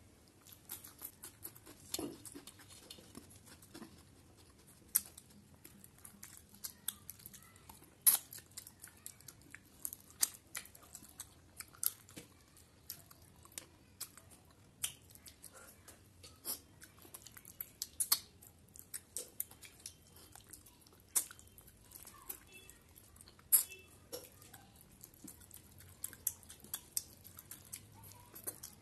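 A person chewing mouthfuls of katla fish head curry and rice eaten by hand: irregular sharp lip smacks and mouth clicks, a few louder than the rest.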